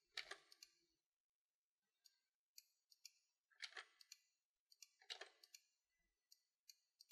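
Faint clicks of a computer mouse in an otherwise near-silent room, three short pairs of clicks as buttons are pressed and released: one near the start, one about halfway through and one a second and a half later.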